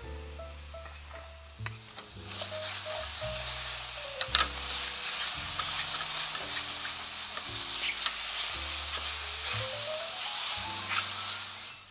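Mushrooms sizzling in a dry frying pan as a spatula stirs them, with scattered scraping clicks against the pan; the sizzle starts about two seconds in and fades near the end. Soft background music with a bass line plays underneath.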